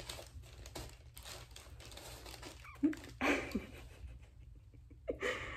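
A baby's brief vocal sounds: a short cluster of small pitched noises and a breathy burst about three seconds in, then another short sound near the end, over quiet room noise.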